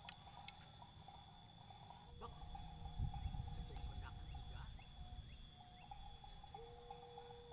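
Faint steady insect chirring, with a few short pitched calls over it and a brief low rumble of wind or handling noise about three seconds in.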